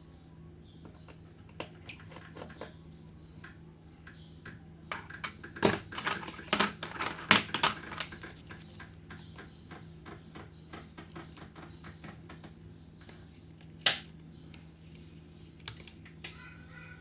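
Irregular small clicks and taps of hand tools on a phone's parts during a screen repair. They come thick and fast for a few seconds around the middle, then sparse, with one sharp click later on.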